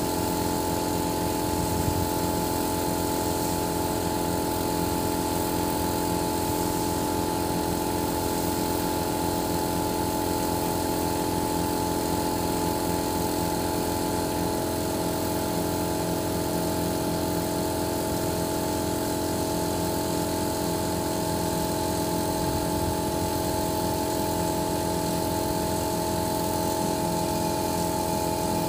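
An engine running steadily at constant speed: an unbroken drone with a steady hum.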